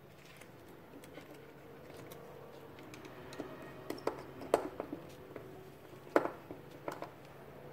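Hands handling insulated control wires and a plastic push-button contact block during wiring: light rustling with scattered small clicks and taps from about three seconds in, the sharpest a little after six seconds.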